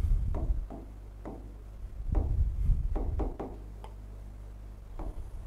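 Felt-tip marker writing on a whiteboard: a string of light taps and short scratches as the letters are drawn, some with a dull low bump.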